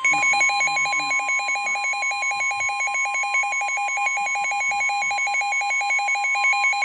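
NOAA Weather Radio warning alarm: a steady tone of about 1050 Hz, signalling a warning-level alert, with a fast, evenly alternating alarm beep sounding over it from the Midland WR100 weather radio.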